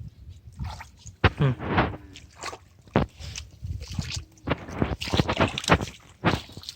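Water splashing and sloshing in irregular bursts, with a few sharp splashes.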